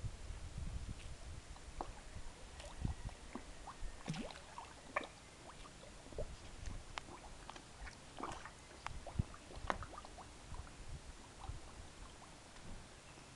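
Koi breaking the pond surface: scattered small splashes and slurps of water as they mouth at the top.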